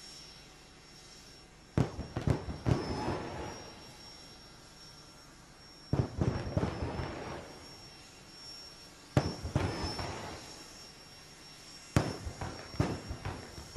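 Jet-engine car's afterburner fired in four short blasts about three seconds apart. Each opens with a sharp bang and trails off in a crackling rumble, over a thin, steady high whine from the running turbine.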